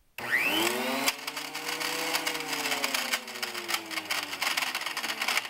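PowerTec benchtop thickness planer switched on: the motor whine climbs quickly and then slowly sags, under a loud, rapid metallic clatter throughout. The rattling is the sign of a catastrophic internal failure, with something loose inside, which the owner blames on cheap materials and poor engineering.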